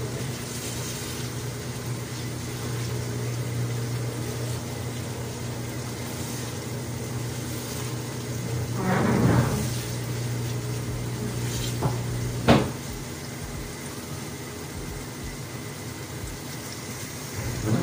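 Wooden spatula stirring stew in a frying pan on a gas hob: a scraping rustle about nine seconds in and two sharp knocks near twelve seconds, over a steady low hum.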